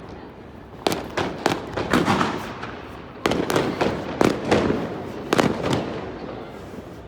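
Fireworks bursting in quick clusters of sharp bangs and crackles, several within each second, with a rumbling echo after each cluster.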